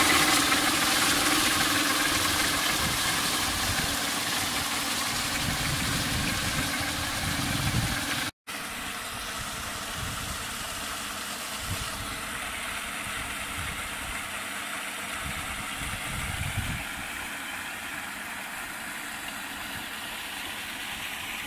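Paddle wheel aerator churning and splashing pond water, with the steady hum of its 48-volt solar-powered electric drive. Close and loud at first, it drops out for a moment about 8 seconds in and then runs on quieter and more distant.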